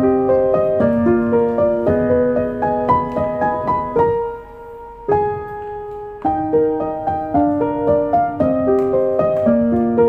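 Background piano music: a gentle melody of single notes that thins to a few held notes about four seconds in, then picks up again about six seconds in.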